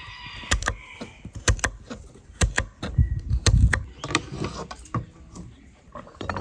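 Irregular sharp knocks and clicks of objects being handled, with a few heavier dull thuds around the middle.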